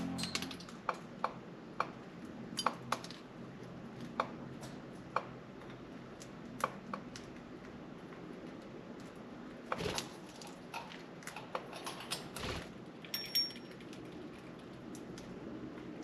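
Pet budgies moving about their cage, making irregular light clicks and taps, with a few louder knocks around ten and twelve seconds in.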